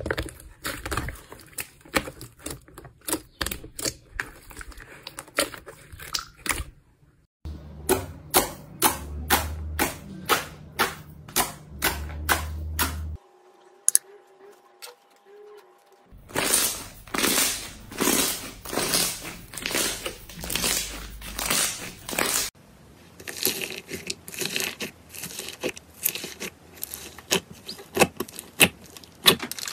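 Slime being squeezed, pressed and stretched by hand, making a string of wet clicks and pops, in several short clips one after another with a short quiet stretch about halfway through.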